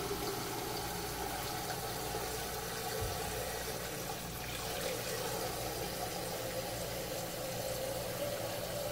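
Kitchen faucet running, filling a container with water; the steady rush slowly rises in pitch as the container fills.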